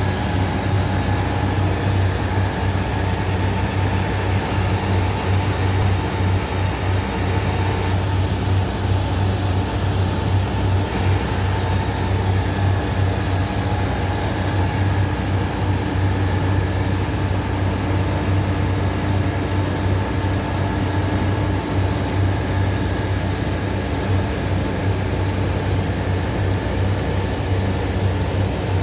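An electric motor running with a steady hum and a few constant whining tones above it.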